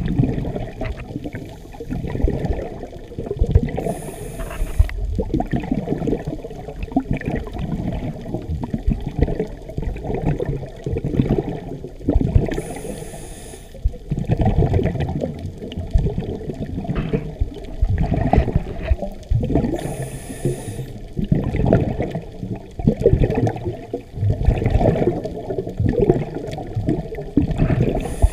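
A scuba diver's regulator breathing, heard underwater through a camera housing: a short hiss of inhalation about every eight seconds, four times, with the gurgling rush of exhaled bubbles in between.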